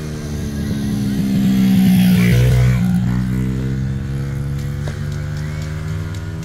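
An engine running with a steady hum of several tones, growing louder to a peak about two seconds in and easing off again after about three seconds.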